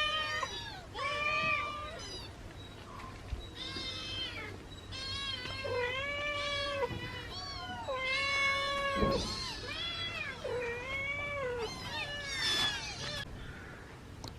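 Kittens meowing over and over, a string of drawn-out meows with short pauses between them.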